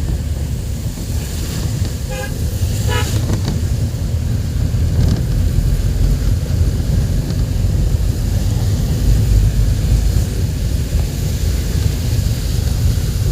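Steady low rumble of a moving train with wind on the microphone, and two short toots of the train's horn about two and three seconds in.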